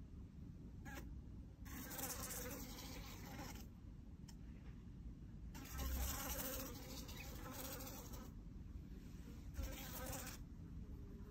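A fly buzzing on a window pane in several short bursts of up to about two seconds, with quieter pauses between them.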